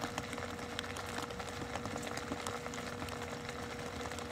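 Steady background hum carrying one clear high steady tone and a weaker lower one, with scattered faint clicks over a low haze of noise.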